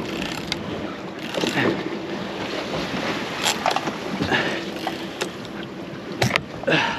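Wind buffeting the microphone and water sloshing around the stern of a boat at sea, with two sharp knocks a little after six seconds.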